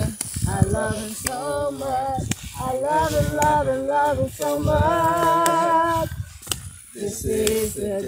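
Voices singing unaccompanied, with a long held note just past the middle and a short break about a second later.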